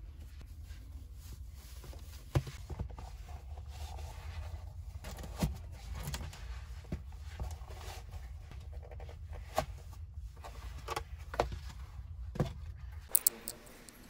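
Low steady hum with scattered light clicks and knocks of small objects being handled, ending in two sharp clicks as the hum cuts off near the end.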